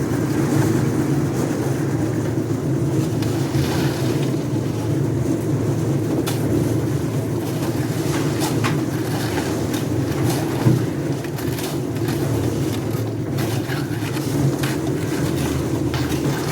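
An engine on a concrete slab pour runs steadily with a low drone, and a few sharp knocks and clicks sound over it, the loudest about two-thirds of the way through.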